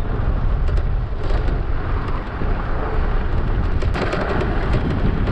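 Wind rumbling and buffeting on the microphone while riding an electric bike at speed: a steady, loud, low roar, with a few sharp clicks about four seconds in.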